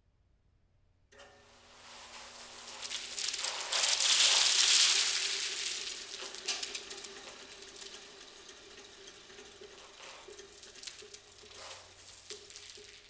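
Electric motor starting up and spinning a tractor tire into a mound of dried corn kernels: a sudden rush of kernels being flung and scattering, loudest a few seconds in, then thinning to scattered clicks of kernels landing, over a steady motor hum.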